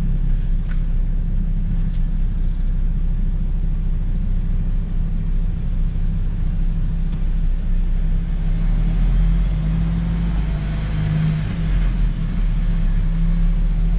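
Truck's diesel engine running at a low, steady drone, heard from inside the cab as it drives slowly. Faint regular ticking is heard for a few seconds early on.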